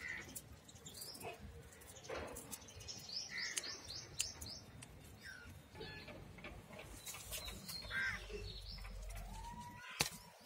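Birds chirping with short, high notes, including a quick run of several notes about three seconds in; a sharp click near the end.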